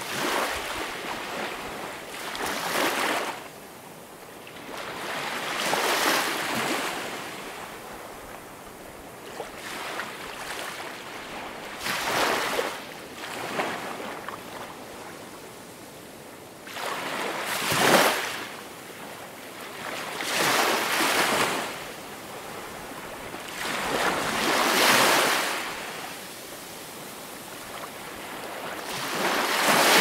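Small waves breaking and washing up a pebble beach, a hiss that swells and fades again every few seconds, about ten times over, the sharpest breaks just past halfway and at the end.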